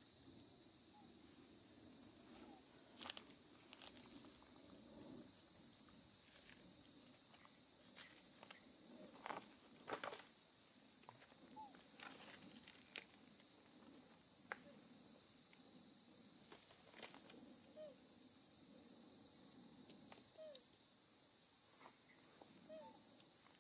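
Steady high-pitched drone of insects, with scattered crackles and rustles of dry leaves under macaques' feet, the sharpest near the middle, and a few faint short chirps.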